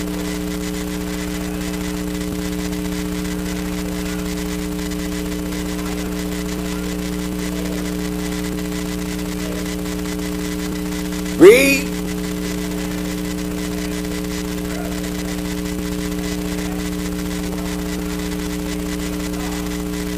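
Steady electrical mains hum, with one person's short, loud vocal exclamation rising sharply in pitch about halfway through.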